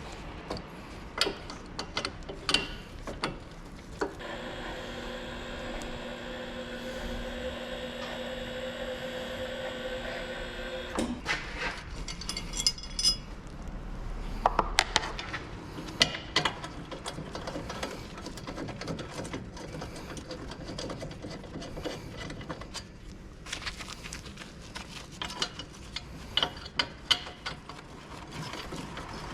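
Clicks, clanks and ratcheting of hand tools on brake parts during front brake pad and disc rotor removal, with a steady motor-driven whine for about seven seconds early on that cuts off sharply.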